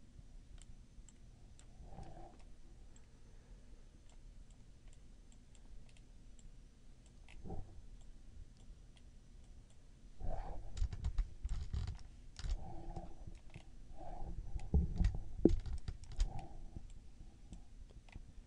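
Faint, scattered clicks and taps of a computer mouse and keyboard, busier for several seconds past the halfway point, with a few low knocks.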